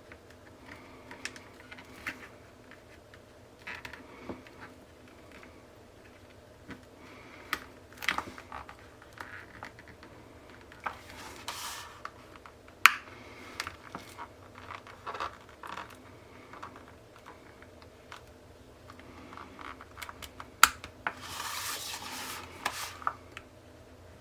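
Metal micro spatula scraping and clicking against the staples in a zine's spine as the staple arms are pried up and pulled out, with scattered sharp ticks. Paper rustles briefly midway and again for longer near the end.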